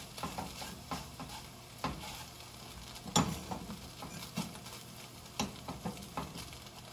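Eggs sizzling in a frying pan while a utensil stirs them, with scattered light clicks of the utensil against the pan about once a second.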